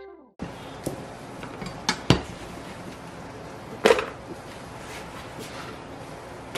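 A few sharp knocks and taps of carrot slices and hands on a plastic cutting board as the slices are cleared off it, loudest a pair about two seconds in and one near four seconds in. Under them is a steady low hiss.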